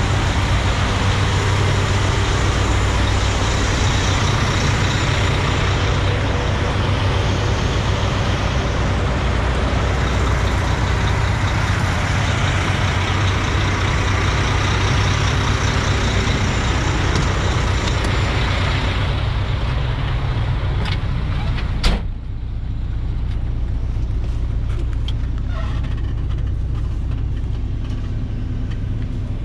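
Semi-truck diesel engines idling, a steady low rumble with a wide hiss over it. About 22 seconds in comes one sharp bang, like a truck cab door shutting, after which the low rumble goes on muffled, heard from inside the sleeper cab.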